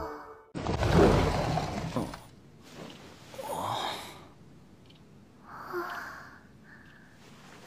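A soft rushing noise lasting about a second and a half near the start, then a young man's drowsy sigh as he stirs awake, with faint breathy sounds later.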